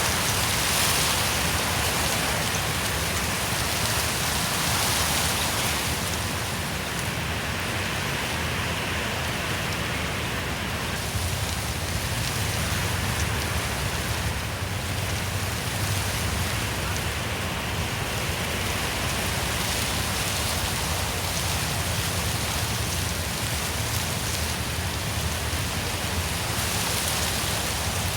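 Wind blowing through forest trees: a steady rushing of leaves and branches, with gusts swelling and easing every few seconds.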